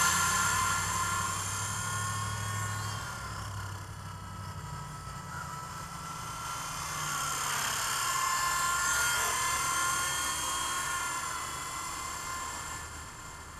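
WLtoys V912 RC helicopter's electric motor and rotor whining in flight, its pitch wavering slightly with throttle. It is loud at first, fades as the helicopter flies off, swells again about halfway through, and fades near the end.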